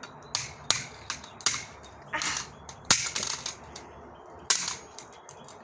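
An old cordless phone handset struck hard again and again: about six sharp cracking hits at uneven intervals, as its already shattered screen and plastic case break up further.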